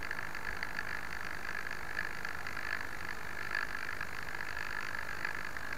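Steady hiss with a faint flicker, picked up by the onboard camera's microphone while the crashed plane lies still.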